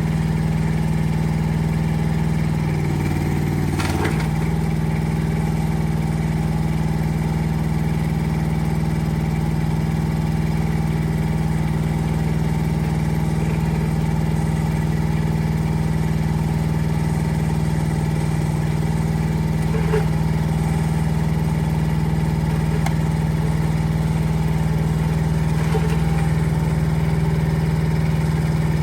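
Rippa R10 Eco mini excavator's engine running steadily at a constant speed, with a brief change in its sound and a sharp knock about four seconds in.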